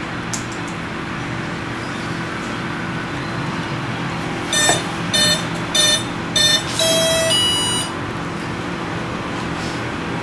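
Brushless EDF motor giving its speed controller's startup beeps: four short beeps, then a longer beep that steps in pitch, the ESC arming before the 70 mm fan runs. A steady hiss and hum lies under it.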